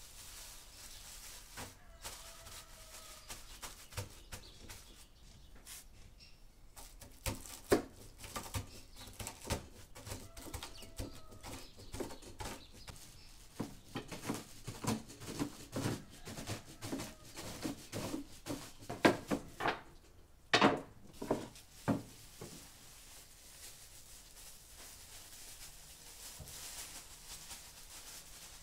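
Walnut kernels in a plastic bag being crushed under a wooden rolling pin on a wooden board: a dense run of irregular crunching cracks and knocks that starts about a quarter of the way in and stops about three-quarters through, the sharpest cracks near its end.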